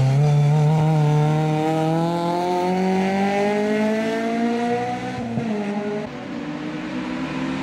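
Honda Integra race car's four-cylinder engine accelerating hard, its pitch climbing steadily for about five seconds. About five seconds in the pitch drops sharply and the engine runs on at lower revs.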